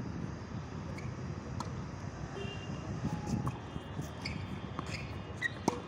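Tennis rally on a hard court: a few sharp knocks of racket on ball and ball bouncing, the loudest near the end, over a steady low background rumble.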